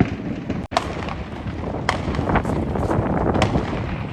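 Many consumer fireworks and firecrackers going off at once: a continuous crackling din with a few sharper pops standing out.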